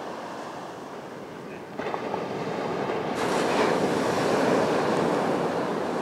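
Sea surf breaking on a beach, mixed with wind on the microphone, a steady rush that grows louder about two seconds in and again about three seconds in.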